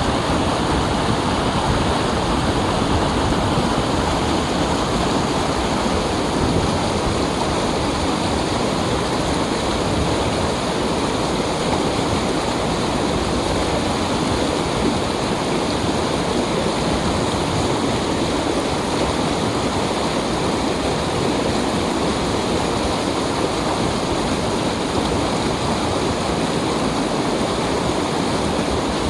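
Mountain valley stream rushing over rocks in a steady, unbroken flow.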